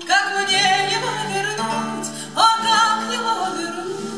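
A woman singing to her own acoustic guitar accompaniment. Two sung phrases each begin with an upward swoop, the second about two and a half seconds in, over steadily played guitar.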